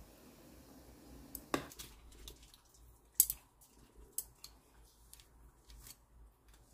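Scattered sharp clicks and small handling taps, the loudest about three seconds in, as a foil pouch of black bean sauce is squeezed out over drained ramen noodles in a wide pan.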